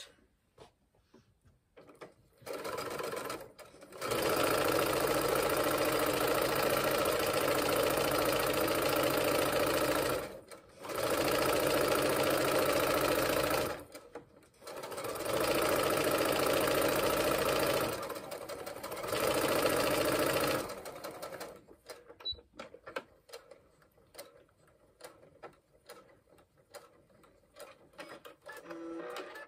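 Brother electric sewing machine stitching a seam along a fabric strip, running steadily in four runs of a few seconds each with short pauses between. A softer, slower stretch comes first, and after about twenty seconds it stops, leaving only light clicks of fabric handling.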